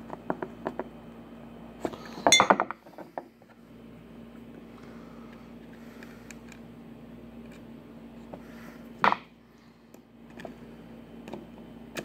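Clicks and clinks of a screwdriver and small metal screws on a six-push-button air-conditioner selector switch being put back together on a wooden top: a quick rattle of clicks a couple of seconds in and one sharp clink about nine seconds in, over a faint steady hum.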